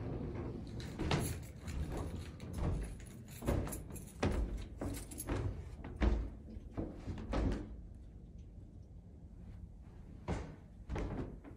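Footsteps thudding on a carpeted wooden floor, irregular and roughly one or two a second, falling quieter for a couple of seconds before picking up again near the end.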